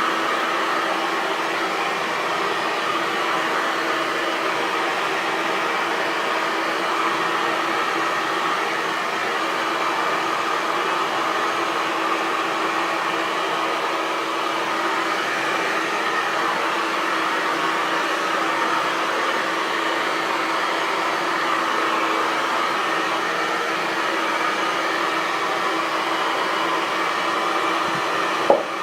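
Hair dryer running steadily: an even blowing hiss with a steady hum. There is one brief click near the end.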